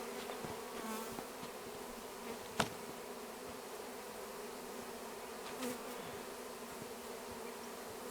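A mass of honey bees buzzing around a hive during a nuc installation, a steady hum throughout. A single sharp knock sounds about two and a half seconds in, with a couple of fainter knocks elsewhere.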